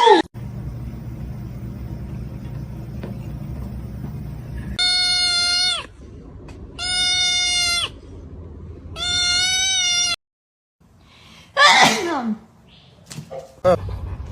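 A cat meowing: three long, even-pitched meows of about a second each, a second apart, then a shorter meow that falls in pitch.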